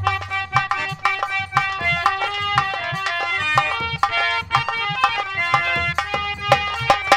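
Instrumental nautanki folk music: hand drums playing a busy stroke pattern under held melody notes.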